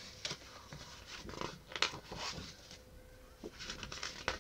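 Pages of a large picture book being turned and handled: soft paper rustles and flicks, with a sharper flick about two seconds in.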